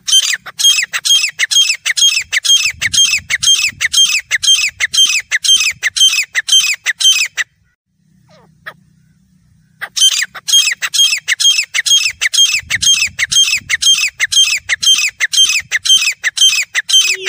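Grey francolin calling: two long bouts of loud, high-pitched calls repeated rapidly, about three a second, with a pause of about two seconds between them.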